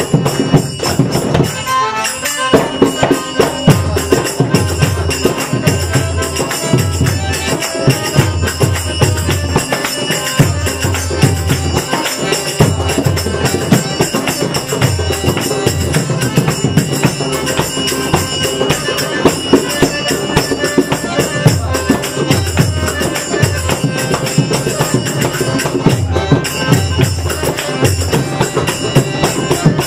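Indian devotional music played live: a harmonium with a steady jingling percussion and a repeating low drum beat.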